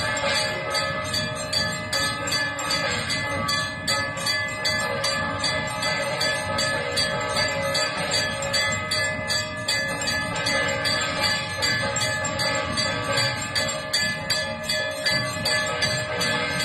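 Temple bells ringing continuously in rapid, steady strikes, making a dense clanging over a sustained ring, as during a ritual bathing of the idol.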